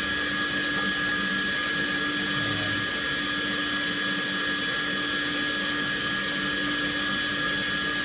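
Steady whirring hum of a running motor-driven fan: a constant low tone and a higher whine over an even rushing hiss, unchanging throughout.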